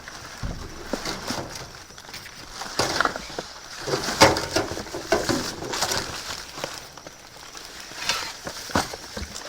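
Irregular rustling, crinkling and knocking of bags and packaged items being handled and rummaged through in a dumpster, with sharper knocks about four seconds in and again near the end.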